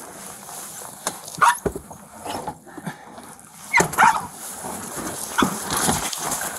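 Cornered feral dog giving a few sharp barks, the loudest about four seconds in, while blankets and bedding rustle around a catch-pole snare.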